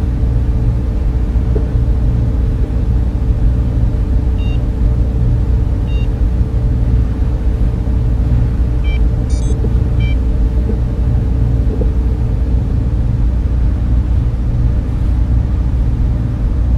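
Steady low rumble and machinery hum of a sci-fi spaceship interior ambience, like fans and motors running, with a few faint short electronic blips near the middle.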